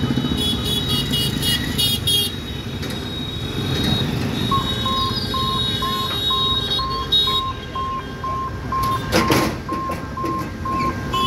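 Motorbike and scooter traffic rumbles across a railway level crossing, with a quick run of high-pitched toots in the first two seconds. From about four and a half seconds in, the crossing's electronic warning beeper sounds steadily, about twice a second, as the boom barrier is lowered. About nine seconds in there is one short loud burst.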